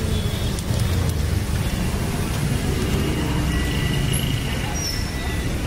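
Peanuts sizzling in a small pool of hot oil in an iron kadhai, a steady frying hiss over a continuous low rumble.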